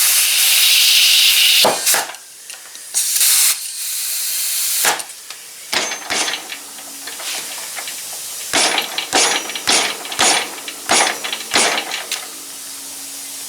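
Compressed air hissing from an air chuck into a zero-turn mower tire: a long blast of about two seconds, another about three seconds in, then a series of short spurts as the tire is topped up.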